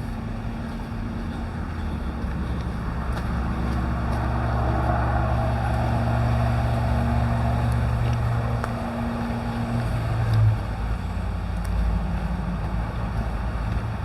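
A motor vehicle engine running with a steady low hum. It grows louder towards the middle, then eases off, and the hum drops away about ten seconds in.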